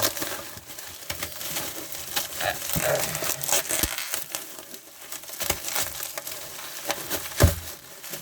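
Plastic bubble wrap being pulled and unwrapped by hand, crinkling irregularly with scattered clicks and a few knocks, the loudest a thump near the end.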